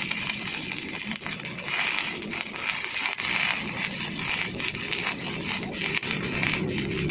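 Electric welding arc crackling and hissing steadily with many fine pops, laying a root pass.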